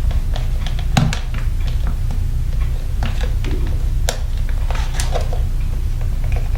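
Sharp plastic clicks and taps as a radio's plastic back stand is pressed and worked into its hinge slots, a dozen or so clicks spread unevenly, over a steady low hum.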